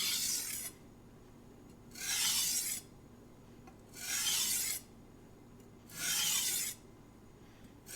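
Knife blade stroked across a coarse King 300 whetstone with light pressure: a hissing scrape about every two seconds, four strokes, with a fifth starting at the very end. These are edge-leading passes on the burr side to remove the burr.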